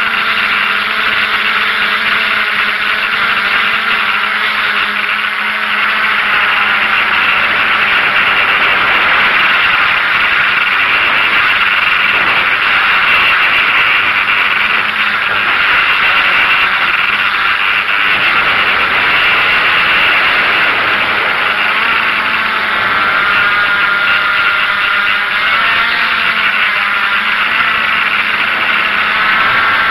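DJI F550 hexacopter's six electric motors and propellers running in flight, heard close up as a loud, steady whirring hiss, with the motors' pitch drifting up and down at times as their speed changes.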